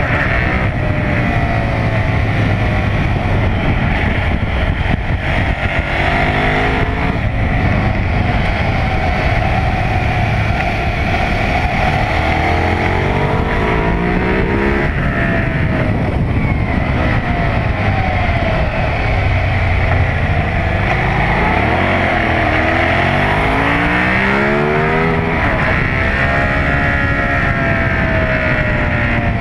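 KTM 990 SMR's LC8 V-twin engine under hard acceleration on track, the revs climbing through each gear and dropping at each upshift and on braking into corners, over and over.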